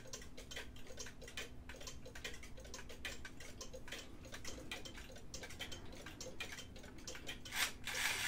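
Kienzle wag-on-the-wall clock's weight-driven movement ticking steadily, each beat of the escapement an even, sharp click. Near the end, a louder knock as a hand takes hold of the clock's minute hand.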